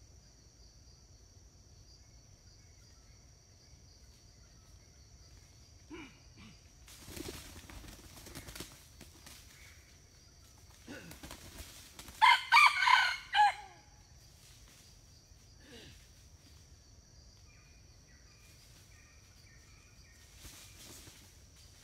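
A red junglefowl rooster crows once, a short crow about twelve seconds in and the loudest sound. A few bursts of rustling in dry leaf litter come before it, over a steady high insect drone.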